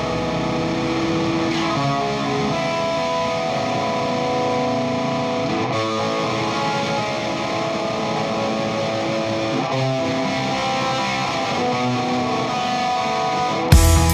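Background rock music: electric guitar playing held notes and chords at a steady level. Just before the end the music jumps louder with heavy low beats.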